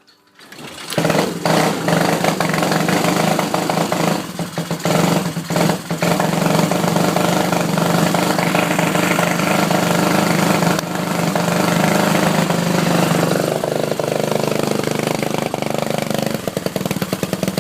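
Whizzer bike's single-cylinder four-stroke motor running, with a few brief dropouts about four to six seconds in, then dropping back to an idle with separate firing pulses near the end. This is the sputtering the owner cannot trace; new main jets have not cured it.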